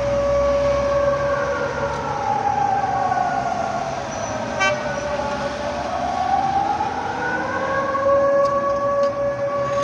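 Air-raid sirens wailing. One holds a steady tone while another falls in pitch over about four seconds and then rises again.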